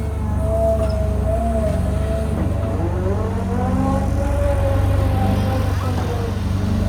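Cat 320GC excavator's diesel engine running steadily under load, with a hydraulic whine that rises and falls in pitch as the machine works.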